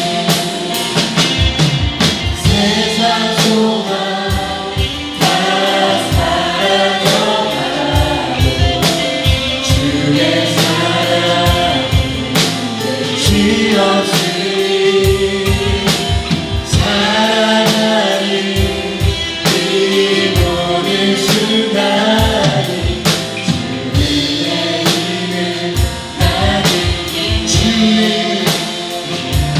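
Korean contemporary praise song sung by a group of voices with band accompaniment, drums keeping a steady beat.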